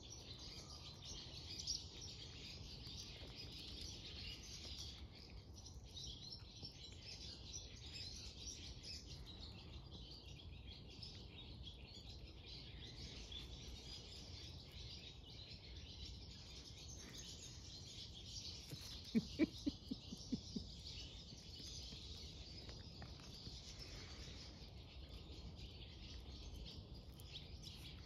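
Wild birds singing, a steady background chorus of chirps. About two-thirds of the way through comes a quick run of five or six short, sharp sounds.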